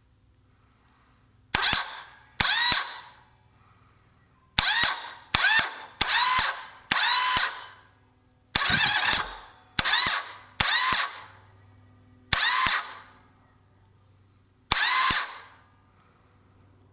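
Starter motor of a 1998 Yamaha Virago XV1100 whirring in about eleven short bursts, each opened and closed by a click and rising in pitch as it spins, while the engine does not start. The bike won't start even with a good bendix, a new idler gear and a fully charged battery.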